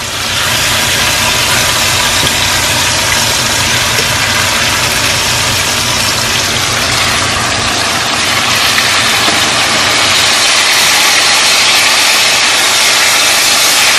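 Bone-in ribeye steaks frying in hot oil in a skillet, a loud, steady sizzle as they are turned over with a fork. A low hum runs underneath and fades about two-thirds of the way through.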